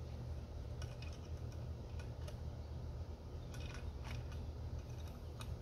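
Light metallic clicks and taps of small parts being handled while the blade disc and friction disc of a Husqvarna Automower robotic mower are put back together by hand, scattered irregularly with a small cluster a little past halfway. A steady low hum runs underneath.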